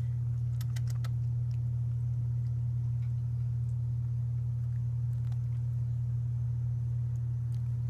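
A steady low hum, with a few faint clicks about a second in.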